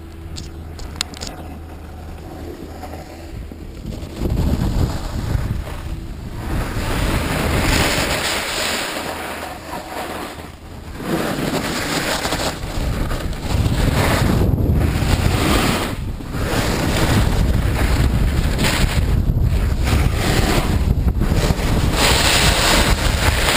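Wind rushing over a ski camera's microphone during a downhill run, mixed with skis sliding and scraping on groomed, hard-packed snow. It gets louder about four seconds in, eases briefly, then rises again from about eleven seconds in.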